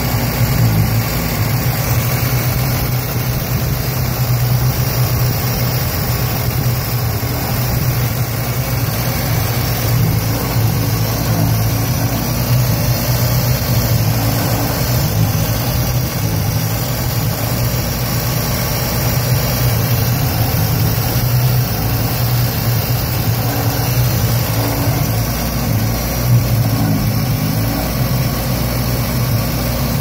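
1976 Datsun B210's 1.4-litre four-cylinder engine idling roughly, with a steady uneven running note.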